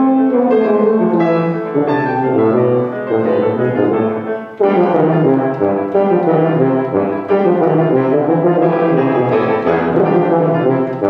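A 1982 B&S F tuba and a grand piano playing a classical duet together. The music dips briefly about four and a half seconds in, then comes back in full.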